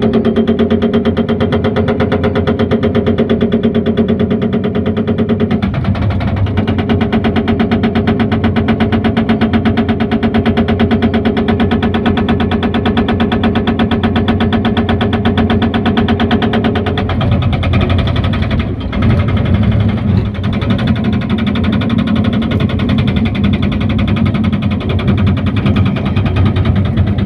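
Excavator-mounted hydraulic breaker hammering in a fast, even rhythm over the excavator's engine, with a short break about five seconds in. About two-thirds of the way through the steady hammering stops and the sound turns rougher and less even.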